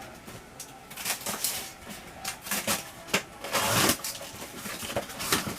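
Cardboard boxes and packaging of NeeDoh fuzz ball fidget toys being handled and unpacked: irregular rustling and knocking, the loudest stretch about three and a half seconds in.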